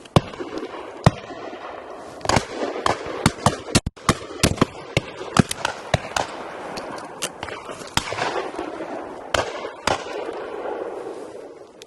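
Shotgun shots at a driven partridge and pheasant shoot: many irregular reports, some close and loud, others fainter from guns farther down the line.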